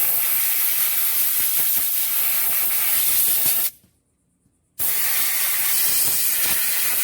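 Aerosol spray can of cleaner blasting in two long, steady hisses, with a short pause about four seconds in.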